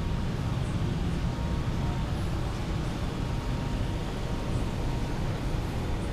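Steady low rumble of background noise with a faint thin hum above it, unchanging throughout.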